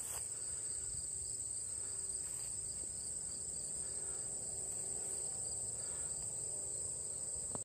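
Steady, high-pitched chorus of trilling insects.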